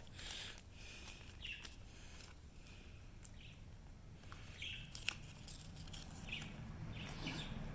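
Faint rustling and a few light clicks of Pokémon trading cards and their packaging being handled.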